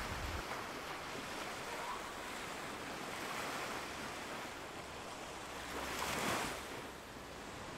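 Steady wash of sea waves and surf, swelling once about six seconds in.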